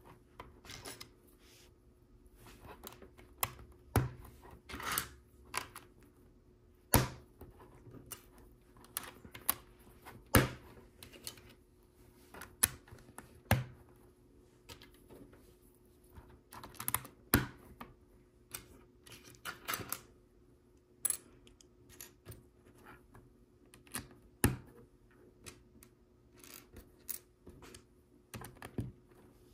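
Plastic LEGO bricks clicking and clattering as they are handled and pressed together, in irregular clicks with a few sharper snaps scattered through.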